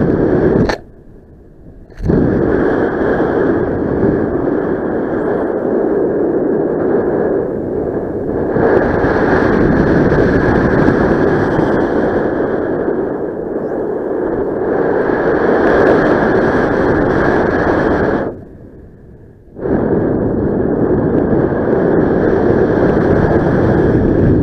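Wind rushing over the camera microphone during paraglider flight: a loud, steady rush that cuts out abruptly for about a second twice, about a second in and about three quarters of the way through.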